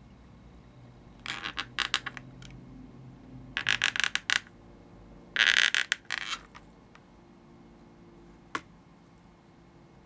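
Black Sharpie marker drawing quick strokes on an inflated latex balloon: three clusters of short scratchy squeaks as whiskers are drawn, then a single click near the end.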